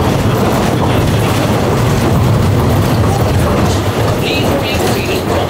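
Vekoma mine train roller coaster running along its track, a steady loud rumble and rattle of the wheels on the rail.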